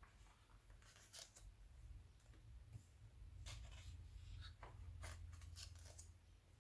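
Faint paper rustling as glossy magazine pages are handled and turned, a few short rustles scattered over a steady low hum.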